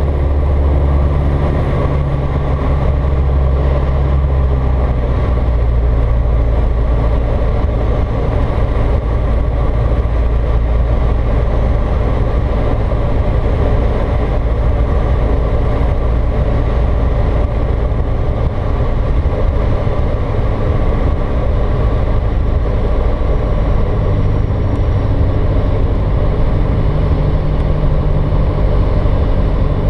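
Single-engine light aircraft's piston engine and propeller droning at low power for landing, heard inside the cockpit with airflow noise. The low engine hum shifts in pitch and strength a few times, about a second in and again near the end.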